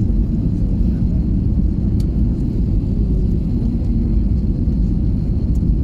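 Steady low rumble of a jet airliner's cabin noise in flight, engine and air noise heard from a window seat inside the cabin, with a faint click about two seconds in.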